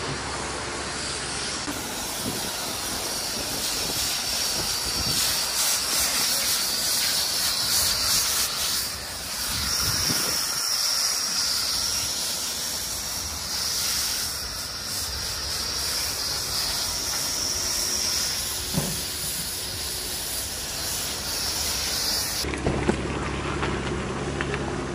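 Pressure-washer snow foam lance spraying foam onto a car: a steady hissing spray that starts about two seconds in and cuts off near the end.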